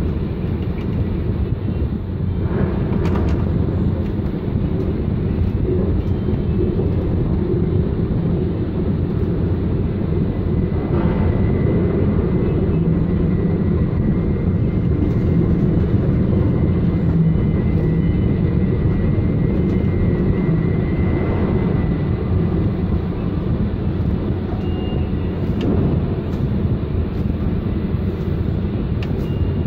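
Ship-to-shore tandem container crane hoisting, heard from its trolley cabin: a steady low rumble of the machinery. A faint high whine joins in for about ten seconds in the middle.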